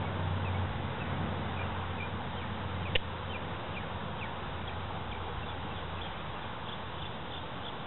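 Outdoor ambience: short, faint, high chirps from an animal repeat throughout, coming more regularly near the end, over a steady low hum that fades out partway through. There is a single sharp click about three seconds in.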